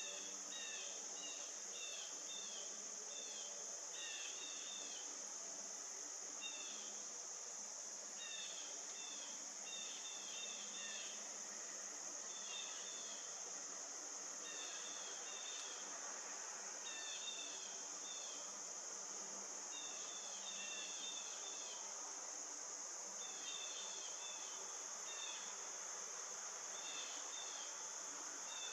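Insect chorus of the cricket kind: a steady high trill, with groups of short, quick chirps repeated every second or two over it.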